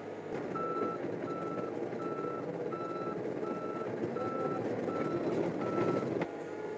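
Komatsu PC35 mini excavator travelling on its tracks: its travel alarm beeps steadily, eight short beeps about 0.7 s apart, over the running engine and track noise. It all stops abruptly near the end.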